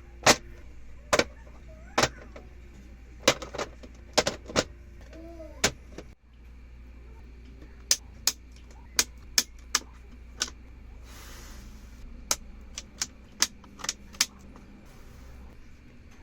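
Sharp plastic clicks at irregular intervals, one or two a second: keycaps being handled and set into an acrylic keycap tray.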